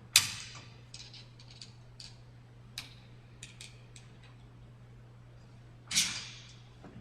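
Metal clicks and clanks from handling a roller chain and its master link, with a sharp clank just after the start and another, ringing briefly, near the end, and light ticks between them. A steady low hum runs underneath.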